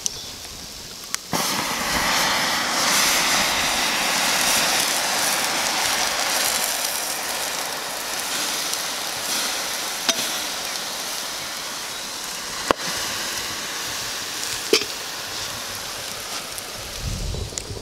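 Water put onto the glowing embers of a log stove, hissing as it turns to steam. The hiss starts with a sharp crack about a second in and slowly dies away, broken by a few sharp pops.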